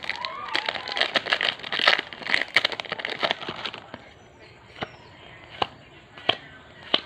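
Foil booster pack wrapper being torn open and crinkled, a dense crackling for about four seconds, followed by four separate sharp clicks as the cards are handled.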